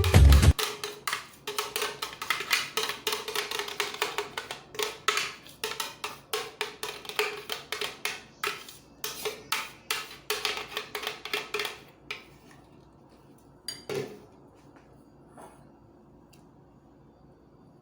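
A metal utensil clinking rapidly against a dish, about four or five strikes a second, as when batter is stirred or beaten. It stops about twelve seconds in, and a single knock follows a couple of seconds later.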